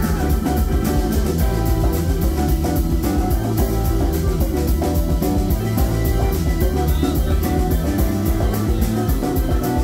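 Live rock band playing, heard from the audience: keyboards over a drum kit keeping a steady beat on the cymbals, with a full low end from bass and guitar.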